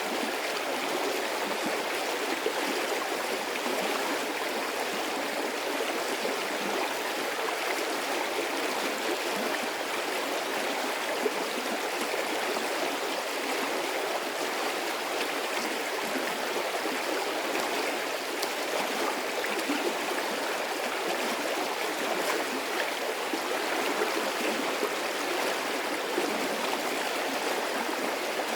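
Medium-sized stream of water running steadily, an even rushing and babbling with small irregular splashes.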